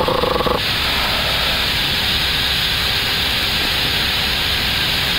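Steady rushing airflow noise on the flight deck of an Airbus A321neo on final approach: an even, unbroken hiss.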